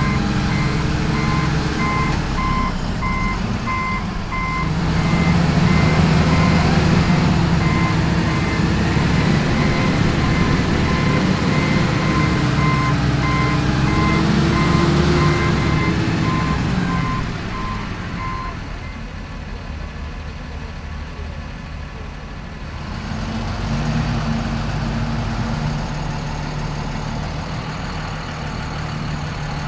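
Wheel loader's diesel engine running and revving, its pitch rising and falling, while its reversing alarm beeps steadily. The alarm stops about eighteen seconds in; the engine drops to a lower, steadier run for a few seconds, then picks up again near the end.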